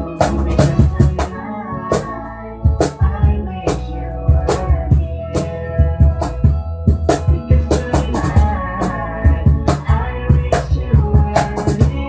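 Instrumental passage of a rock song: a drum kit keeping a steady beat under guitars and bass, with no singing.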